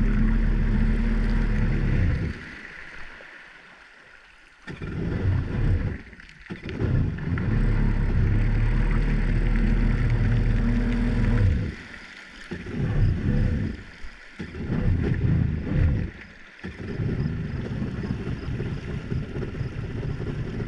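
Yamaha Wave Venture 1100 jet ski's three-cylinder two-stroke engine running on the water, its sound dropping away several times and picking up again (the longest dip about two seconds in, shorter ones later). The engine is still cold, which the rider calls way cold-blooded.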